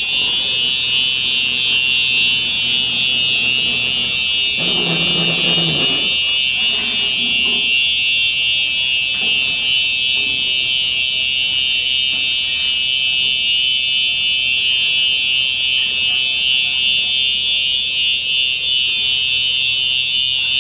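Automatic coffee machine making a drink into a paper cup, with a steady high-pitched whine throughout. A lower hum sounds for a second or two about five seconds in.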